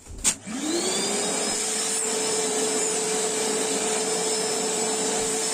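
Black+Decker 1400 W wet-and-dry vacuum cleaner switched on with a click, its motor spinning up in under a second and then running at a steady whine with the hiss of rushing air.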